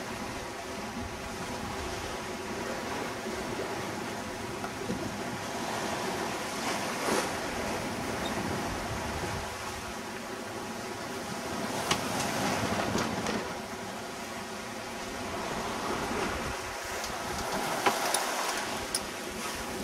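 Sea water rushing and breaking along a sailing yacht's hull as she sails through open ocean waves, with wind; the noise swells and eases with the seas. A few sharp knocks stand out, about twelve seconds in and twice near the end.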